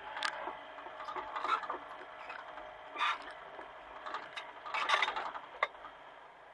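Hitachi mini excavator at work: several short bursts of metallic clanking and scraping, with a sharp click near the end, over a faint steady engine drone.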